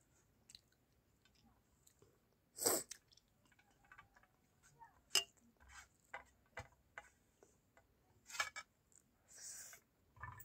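Eating rice by hand from a steel plate: fingertips scraping and pressing grains against the metal, with scattered small clicks and a few sharper smacks, the loudest about a quarter of the way in and about halfway through.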